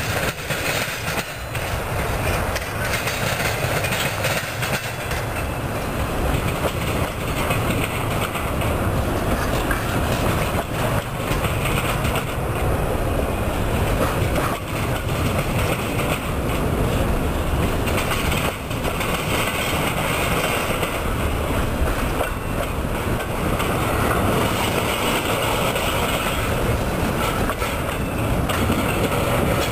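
Intermodal container train, double-stack well cars, rolling steadily past close by. The wheels clatter and click over the track without a break.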